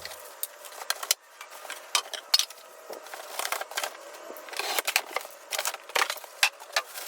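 Packaging being handled while parts are pulled out of a cardboard box: rustling and crinkling, with many sharp clicks and light knocks at irregular moments.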